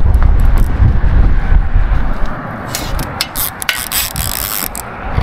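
Fishing reel being handled and cranked, its mechanism giving a run of sharp clicks in the second half, over heavy wind buffeting the microphone.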